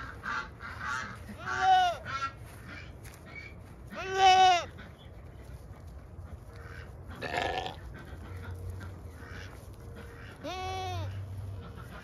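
Peafowl calling, agitated: three loud honking calls about two, four and eleven seconds in, the one at four the loudest, with smaller bird calls in the first second.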